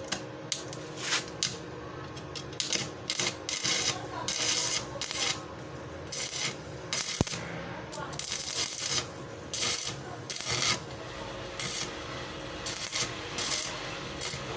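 Hand sanding and polishing strokes on the metal hub of a motorcycle sidewheel: short scratchy rubbing strokes at an irregular pace, with brief pauses between them.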